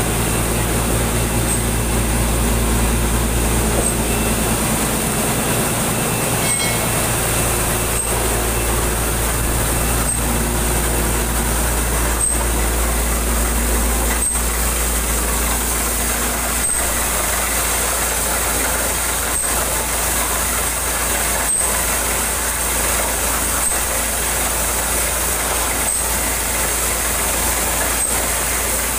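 A borewell drilling rig and its truck-mounted ELGI air compressor running: a steady engine drone with a deep hum, and a faint click about every two seconds.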